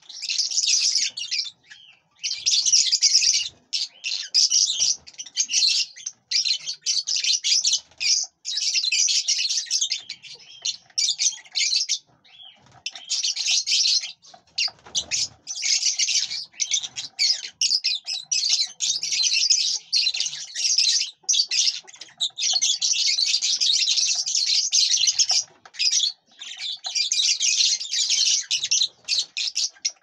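Lovebirds chattering: rapid, shrill, high-pitched chirps in near-continuous bursts with brief pauses.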